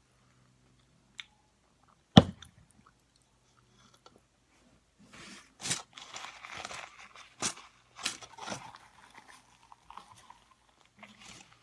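Close-miked chewing and biting of burrito-bowl food, wet and crunchy mouth sounds that set in about five seconds in. A single sharp knock about two seconds in is the loudest sound.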